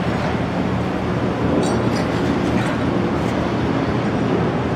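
Steady machinery drone with rushing, churning water as the Boeing Jetfoil's fire pump runs under test, discharging water at the hull. Two faint clicks come about two seconds in.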